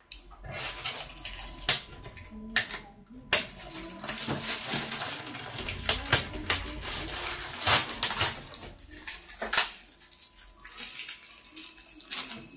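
Plastic bags crinkling, with small hard plastic quadcopter parts clicking and clattering as they are handled, in a quick irregular run of sharp crackles and knocks.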